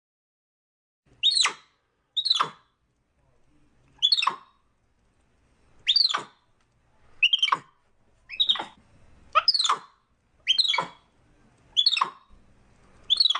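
Capuchin monkey calling: about ten short, high-pitched calls, each falling steeply in pitch, repeated roughly once a second or so.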